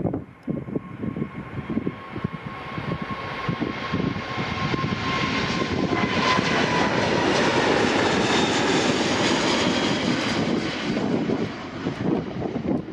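Airbus A380-861's four Engine Alliance GP7270 turbofans at takeoff power, growing louder to a peak a few seconds after the middle as the jet passes close by. A whining tone drops in pitch about six seconds in as the aircraft goes past. Wind buffets the microphone at the start and end.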